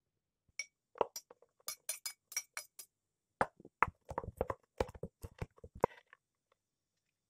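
A kitchen knife blade clinks against a ceramic plate several times as chopped ingredients are pushed off it. About three and a half seconds in, a fast run of heavy chops begins as the knife cuts dried shrimp on a bamboo cutting board.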